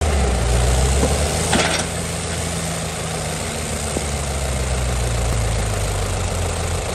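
Diesel tractor engine running steadily, with a brief hiss about one and a half seconds in.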